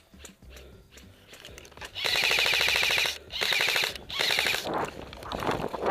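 Airsoft electric gun firing three full-auto bursts in quick succession, starting about two seconds in; the first burst lasts about a second, the next two are shorter. Each is a fast, even chatter of shots.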